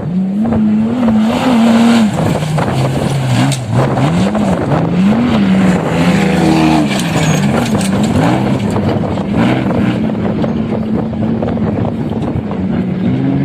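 Engine of an off-road vehicle running under load, its pitch rising and falling again and again as the throttle is worked, with frequent knocks and rattles from rough ground.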